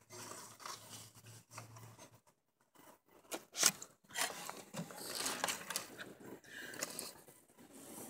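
Scraping and rustling from hands working the fire-lighting materials (flint, steel, char cloth, paper), in short irregular strokes with one sharper scrape about three and a half seconds in.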